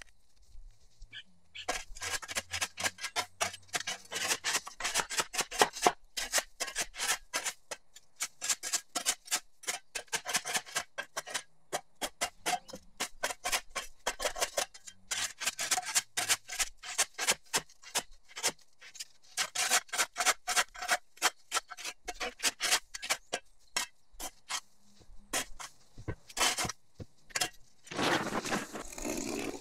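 Flat steel shovel blade scraping and chopping along a concrete sidewalk edge in quick repeated strokes, grating and clinking on the concrete as it cuts back dirt and overgrown grass. Near the end a steadier rushing noise comes in.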